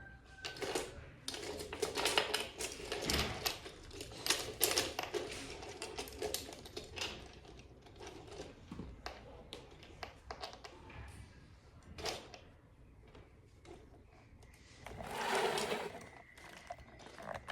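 Small plastic toy pieces clicking and clattering as they are handled: a dense run of clicks over the first several seconds, then scattered ones.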